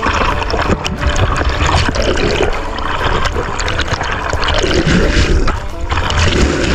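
Cold spring water rushing down a shallow rock spillway and splashing right against the microphone as a swimmer moves through the white water.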